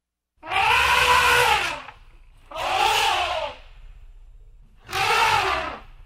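Elephant trumpeting three times, each blast lasting about a second, rising and then falling in pitch, with short pauses between.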